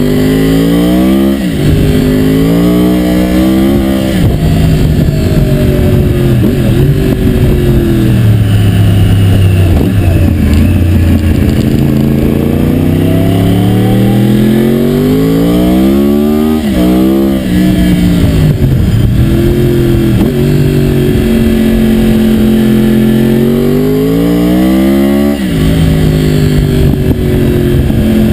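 2009 Yamaha R1's crossplane inline-four engine pulling through the gears, its pitch climbing and then dropping sharply at each upshift, about five times. For several seconds it eases off and falls in pitch before pulling up again.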